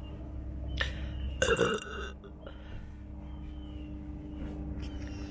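A person burping: one loud belch about one and a half seconds in, lasting about half a second, with a brief shorter sound just before it. A steady low rumble runs underneath.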